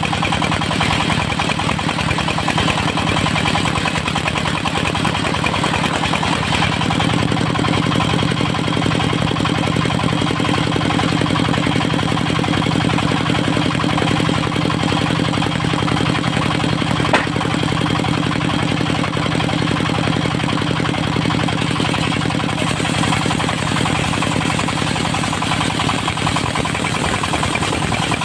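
Engine of a mobile circular sawmill running steadily at an even speed, with a single sharp click past the middle.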